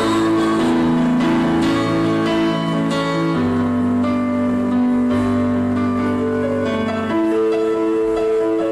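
Live acoustic accompaniment of piano and guitar with no singing: held chords that change every second or two.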